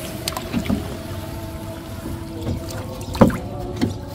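Small splashes and knocks as hands work in shallow water beside a wooden boat, with a sharper knock about three seconds in, over a steady hum.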